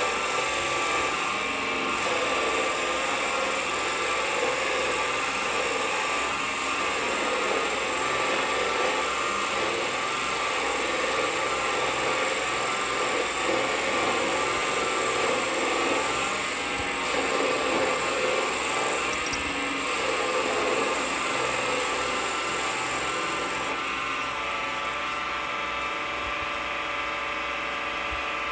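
Vevor mini lathe running under power, its spindle turning a 2024 aluminum bar while the turning tool takes a light cut. It makes a steady whine with several wavering tones, which settles and eases slightly near the end.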